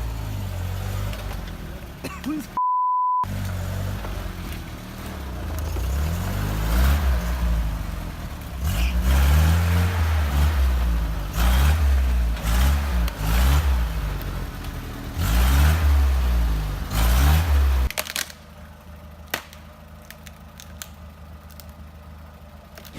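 A short beep tone about three seconds in, then a UAZ engine revving up and down over and over, loud, until it cuts off abruptly about eighteen seconds in and only a quieter steady low hum remains.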